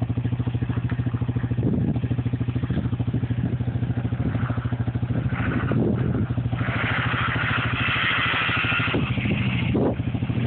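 A nearby engine idles steadily with an even, pulsing beat. From about six and a half seconds in, a four-stroke dirt bike revs high in the distance for about three seconds.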